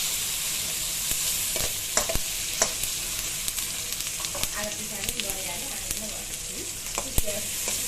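Food frying in hot oil in a pan on a stove, with a steady sizzle, while a metal spoon stirs and now and then knocks against the pan with sharp clicks.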